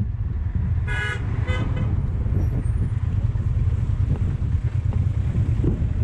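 Two short vehicle-horn toots about a second in, over a steady low rumble.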